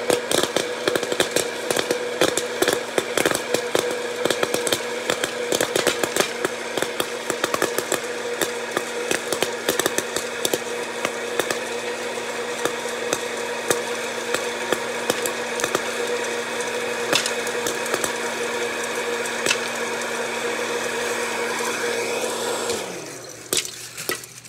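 Hot-air popcorn popper running: a steady motor and fan hum with a dense crackle of kernels popping and popcorn landing in the bowl. Near the end it is switched off and the motor winds down.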